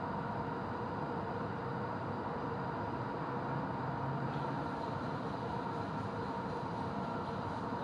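Steady background hum and rush of ambient noise with faint steady tones and no distinct events.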